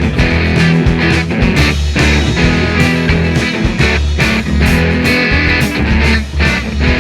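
Background rock music with electric guitar, a steady bass line and a drum beat.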